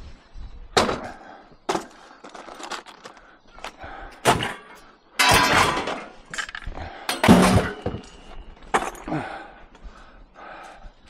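Pieces of scrap metal knocking and clattering as they are picked up and dropped onto a pile, a run of irregular bangs among smaller knocks with a longer clatter about halfway through.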